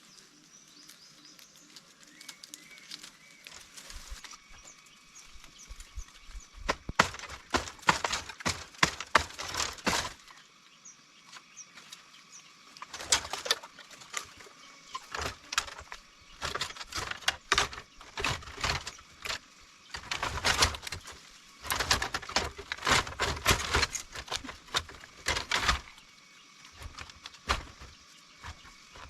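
Irregular bursts of rustling and crackling, as dry leaves, twigs and brush are moved through and handled, with quieter pauses in between.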